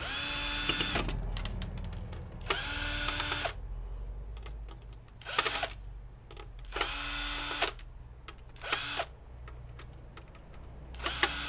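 Cordless drill or electric screwdriver running in short bursts, a steady whine about half a second to a second long, five or six times, backing screws out of a 3.5-inch floppy drive, with small metal clicks of parts and screws being handled between bursts.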